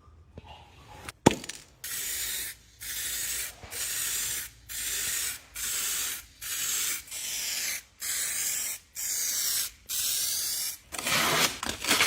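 Hand sanding on the repaired bumper: about ten short rasping strokes, roughly one a second, with a sharp click about a second in.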